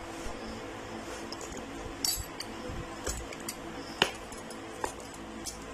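Steel rotary pizza-cutter wheel clinking against a ceramic plate while slicing a pizza: a few sharp clicks, the loudest about four seconds in. Soft background music plays underneath.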